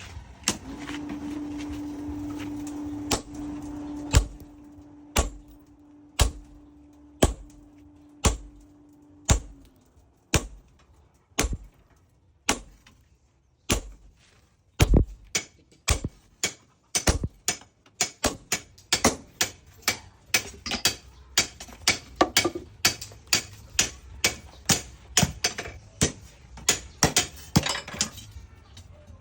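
Hand hammer striking steel on an anvil, forging a chainsaw part into a knife blade: single blows about once a second at first, then quicker strikes about two a second in the later part. A steady hum runs under the first third.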